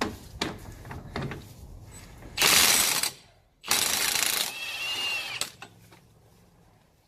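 Impact wrench hammering on a front axle nut through a 36 mm socket in two short bursts, with tool clicks and knocks before and after.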